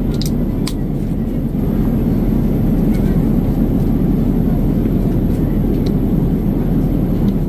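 Steady low roar of a jet airliner's cabin in flight, engine and air noise heard from a passenger seat, with a few light clicks near the start.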